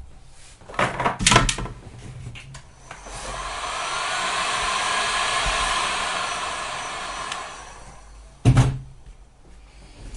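A heat gun blowing hot air for about four seconds, its fan swelling up and dying away, as is typical when shrinking heat-shrink tubing over soldered wire joints. Knocks of tools being handled come before and after.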